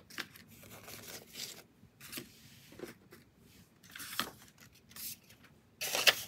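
Paper banknotes rustling and flicking as they are handled and counted, with a louder rustle about six seconds in as a hundred-dollar bill is slid into the binder's clear plastic pocket.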